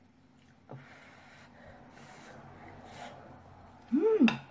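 Faint chewing and mouth sounds of someone eating sausage. About four seconds in comes a short, loud voiced sound that rises and then falls in pitch.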